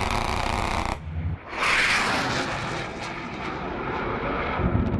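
A fighter jet's cannon burst sounding at the start, echoing off the mountainside, then the jet's engine noise swelling about a second and a half in as it pulls away, slowly easing off.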